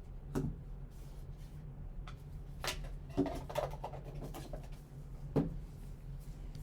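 Trading cards and their packaging being handled: a few short clicks and rustles, the loudest about three seconds in, over a steady low electrical hum.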